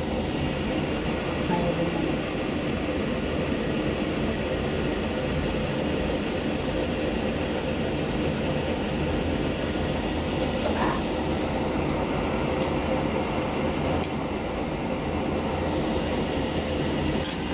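Pot boiling on a stove: a steady rumbling hiss, with a few short, sharp clinks in the second half.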